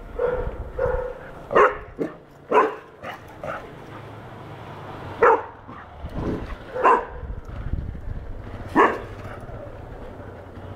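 Four-month-old golden retriever puppy barking in a string of short, sharp single barks, a second or more apart, its reaction to seeing a cow for the first time.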